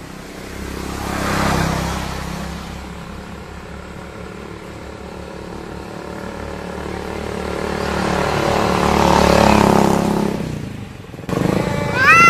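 Two stray cats in a fighting standoff, growling low and drawn out, while motorbikes pass twice in the background; near the end one cat breaks into a loud yowl that rises and then falls in pitch.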